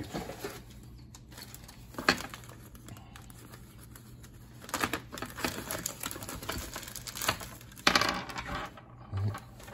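Plastic zip-lock bag crinkling and rustling as it is picked up and opened, with small parts inside clicking against each other. There is a sharp click about two seconds in, and louder bursts of rustling around five and eight seconds.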